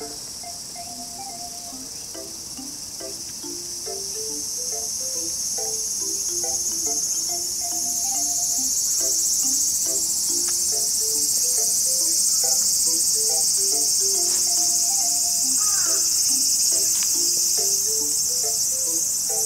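Steady high-pitched chorus of insects, growing louder over the first several seconds. Underneath it, background music plays a simple melody of short notes that repeats every few seconds.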